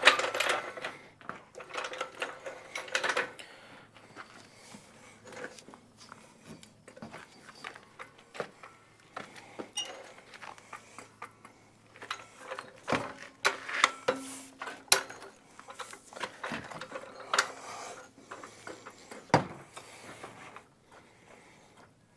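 Scattered metallic clicks, clinks and knocks of hand tools handled and used on a lawn tractor, with a few louder knocks in the second half.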